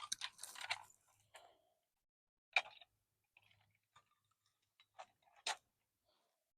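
Faint, scattered scrapes and clicks from children handling toys and dirt: a quick run of scraping in the first second, then single sharp clicks about two and a half seconds in and twice around five seconds in.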